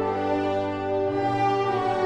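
Orchestral background music of long held notes, the bass note changing about a second in.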